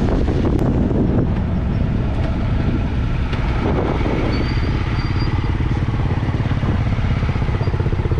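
Triumph Tiger 1200 motorcycle's three-cylinder engine running, with wind buffeting the microphone in the first second. About halfway in it settles into a steady, even idle.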